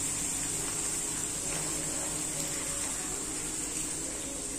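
Pooris deep-frying in hot oil, the oil sizzling steadily as a steel ladle spoons it over them.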